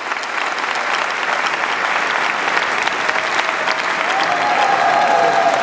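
Audience applauding: many hands clapping in a steady dense patter that swells a little. A held note comes in about four seconds in.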